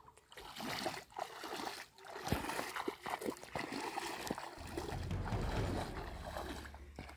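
Water splashing and sloshing as a person wades through shallow, shin-deep pond water, in irregular steps. A low rumble joins in past the middle.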